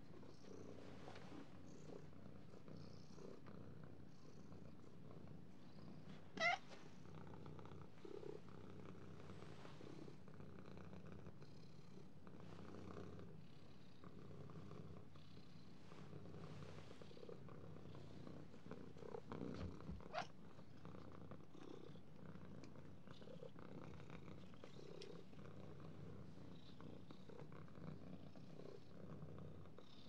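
Domestic cat purring steadily and softly, with a brief high rising squeak about six seconds in and a shorter one around twenty seconds.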